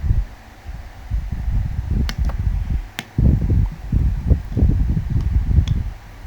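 Irregular handling noise, low rumbling and rustling as things are moved about close to the microphone, with a few sharp clicks around two, three and five and a half seconds in.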